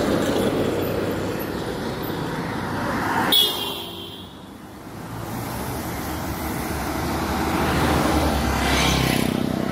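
Road traffic going past close by, with engines and tyres running steadily. A short horn toot sounds about three seconds in, and a vehicle passes close near the end.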